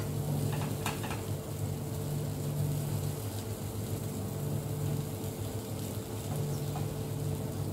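Hot frying pan of tomato and egg slices faintly sizzling over a steady low hum, with two light clicks of a spatula against the pan about a second in.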